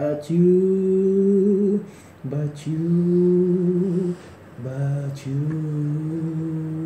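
A man's voice humming three long held notes with a slight wobble, each a little lower than the one before, with a short breath between them.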